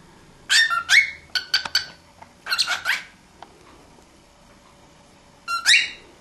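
Cockatiel chirping: a quick run of short, high, rising chirps, then a pause and one more chirp near the end.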